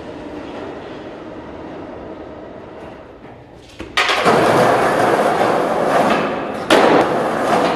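A subway train's rumble slowly fading. About four seconds in, skateboard wheels start rolling loudly over the concrete platform with a sudden thump, and a second sharp knock comes a little before the end.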